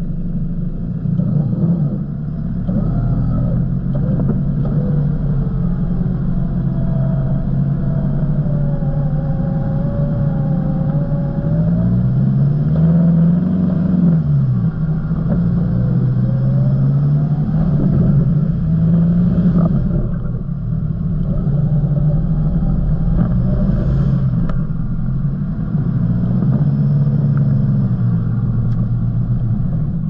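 Four-wheel drive's engine running at low revs as it creeps along a muddy track, the revs rising and falling a few times.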